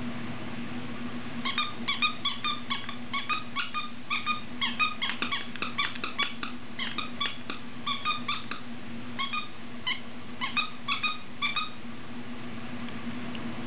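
A plush cow squeaky toy squeaking over and over as a dog chews on it: short, high squeaks about three a second, starting about a second and a half in and stopping near the end, with a brief pause in the middle. A steady low hum runs underneath.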